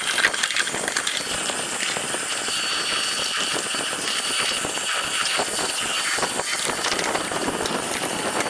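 Harbor Freight sandblaster gun blasting abrasive with compressed air: a steady, loud hiss with a fine gritty rattle.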